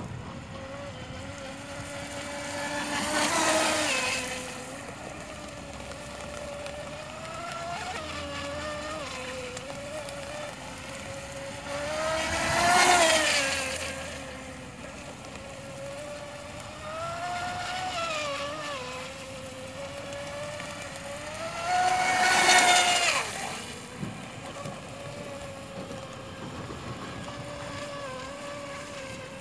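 Radio-controlled speedboat running on the water with a steady motor whine that wavers in pitch as the throttle changes. Three times it swells much louder as the boat passes close, and the pitch drops as it goes by.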